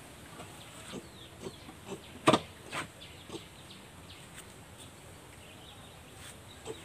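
Chickens calling faintly in a pen, with a few sharp knocks, the loudest a little over two seconds in.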